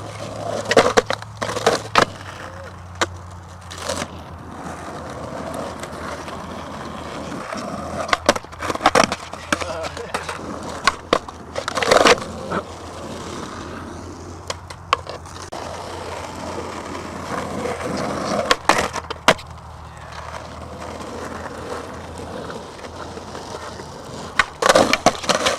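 Skateboard wheels rolling on concrete, broken by sharp clacks and slaps of the board and trucks hitting the concrete as tricks are popped and landed.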